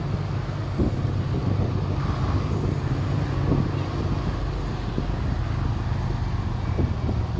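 Steady low engine rumble and road noise of a moving road vehicle, with street traffic around it.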